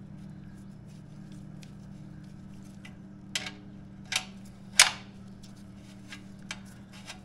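Three sharp clicks a little past the middle, the last the loudest, with a few fainter ticks, from handling the oxygen sensor at the motorcycle's exhaust mid-pipe. A steady low hum runs underneath.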